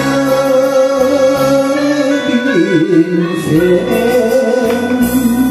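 A woman singing a Japanese song into a microphone over a karaoke backing track, holding long notes, with a short wavering, sliding phrase in the middle.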